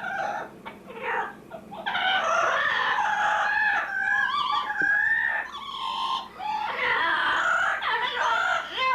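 Two-month-old Amazon parrot chicks calling, typical of hand-fed chicks begging for food. A few short calls come first, then from about two seconds in a near-continuous stream of wavering, raspy cries.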